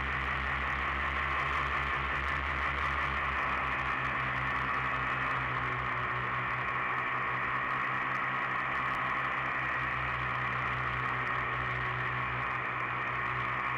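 Steady motor drone with a hiss over it, holding one unchanging pitch, most likely the motor of the aircraft that carries the camera.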